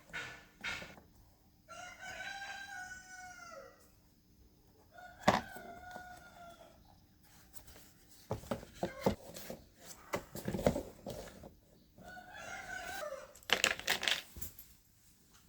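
Three long, drawn-out calls, each arching up and then down in pitch, with sharp clicks and knocks in between.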